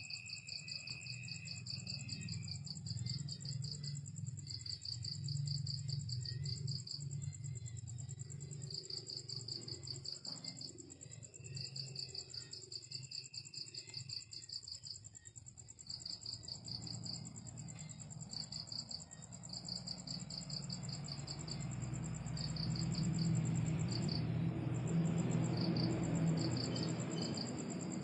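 Night insects: crickets chirping in repeated trains of rapid pulses over a steady high insect trill. A low hum runs underneath and swells with a rushing noise in the last several seconds.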